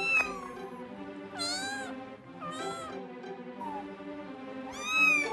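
Young Russian Blue kitten mewing: about four high, arching mews, the first and last the loudest, over soft background string music.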